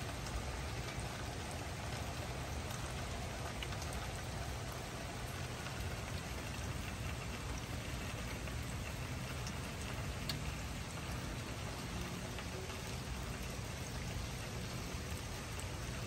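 Steady rain falling, a continuous hiss with a few distinct drop ticks.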